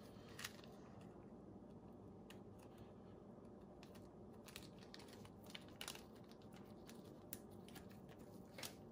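Near silence with a few faint, scattered clicks and rustles: gloved hands handling a small plastic bag of paper filter discs.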